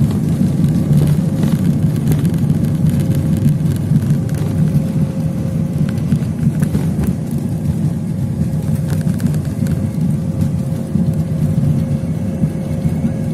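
Cabin noise of an airliner rolling out on the runway after touchdown, ground spoilers up: a steady low rumble of engines and wheels with a faint steady hum, easing slightly toward the end.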